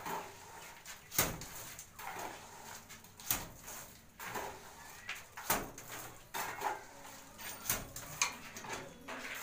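Wet sand-cement mortar flicked by hand against a lightweight aerated concrete block wall, landing in sharp splats about once a second. This is a spatter-dash coat thrown on so that the plaster will grip.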